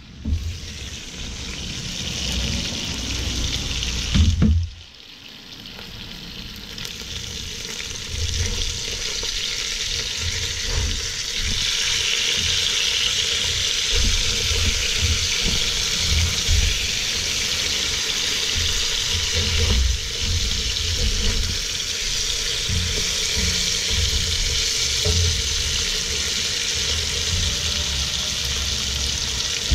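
Trout pieces frying in hot oil in a pot, a steady sizzle that builds over the first several seconds, with the knocks and scrapes of a spatula turning the fish.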